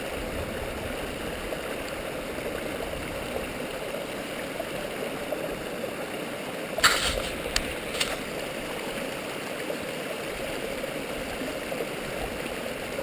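A small waterfall on a stream, the water rushing and gurgling steadily. A few short sharp clicks come about seven and eight seconds in.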